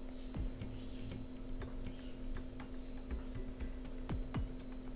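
Faint irregular ticking and clicking from a small audio volume potentiometer being turned by hand, with test probes held against its lugs, over a steady low hum.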